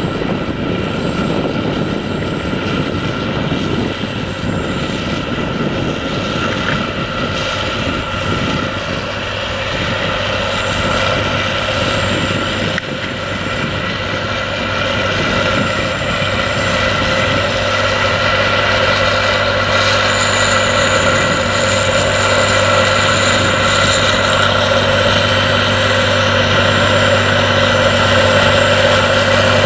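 Challenger MT865C tracked tractor's Caterpillar C18 diesel engine working steadily under load while pulling a reversible plough through the soil, growing gradually louder as it comes close.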